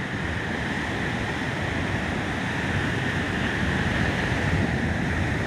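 Ocean surf breaking and washing up the beach, a steady rush of noise, with wind on the microphone.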